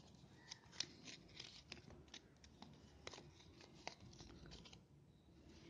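Faint, irregular light ticks and rustling as crochet thread is wound by hand around a small piece of cardboard, the thread catching and rubbing on the card.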